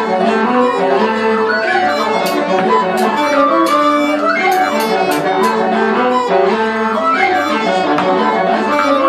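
Irish traditional music: uilleann pipes playing a fast reel together with a whistle and a flute, with a steady low drone underneath.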